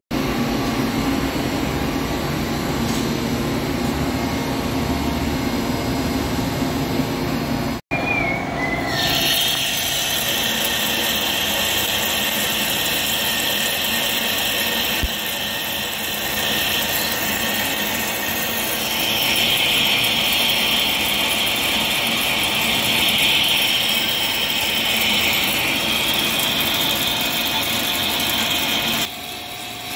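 A heavy CNC lathe turning a stainless steel roll, its carbide tool cutting steadily under flood coolant with a steady high cutting noise that grows louder about 19 seconds in. The first eight seconds hold a lower, steady machine drone that breaks off abruptly.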